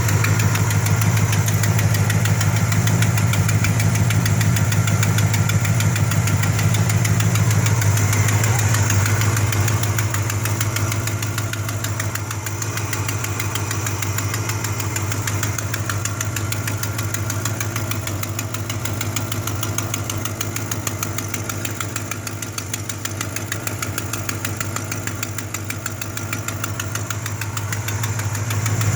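A vehicle engine idling steadily, with a rapid, even ticking pulse that is the sign of an exhaust leak. It gets somewhat quieter about a third of the way in.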